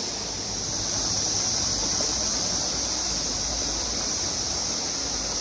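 River water rushing over shallow rocky riffles: a steady, even hiss of flowing water.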